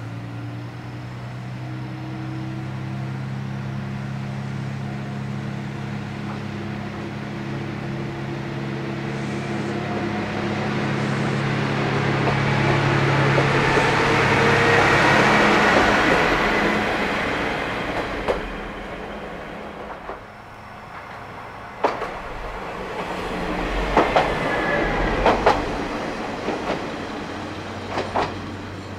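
Diesel railcar on the Kanto Railway Joso Line: its engine hums and grows steadily louder as it passes close by about fifteen seconds in, then fades away. In the second half come several sharp clacks of wheels over rail joints.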